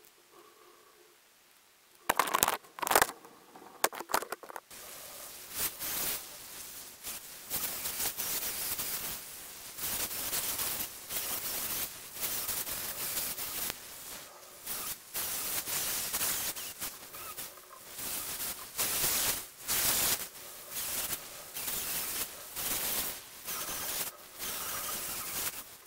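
Small chainsaw carving fresh pine, revved in repeated one- to two-second bursts as it cuts. About two seconds in there is a short burst of sharp knocks and clatter.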